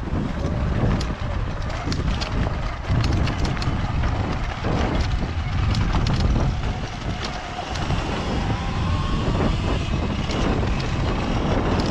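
Wind buffeting the microphone and tyres crunching over loose, rocky dirt as an electric dirt bike rolls down a trail, with frequent clicks and rattles from stones and the bike.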